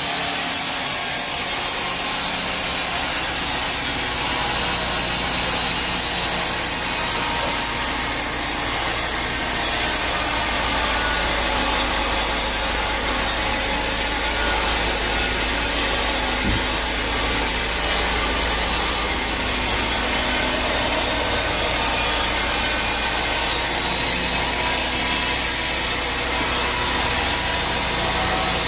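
Sawmill saw blade cutting steadily through teak wood: an even sawing noise over a low motor hum, with no break.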